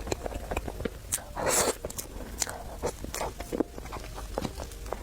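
Close-miked eating: chewing and biting with many small wet clicks, and one louder, longer noisy burst about a second and a half in.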